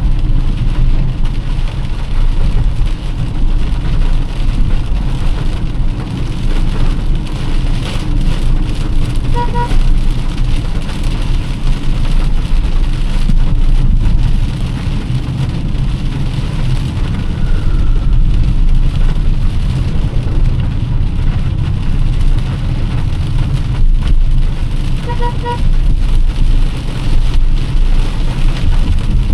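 Heavy rain pouring on a moving car, mixed with a steady low road rumble and the hiss of wet tyres. A brief double beep sounds twice, about sixteen seconds apart.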